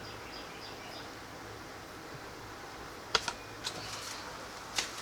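A few sharp clicks and taps from handling, about three seconds in and again near the end, over steady background noise, with faint high bird chirps in the first second.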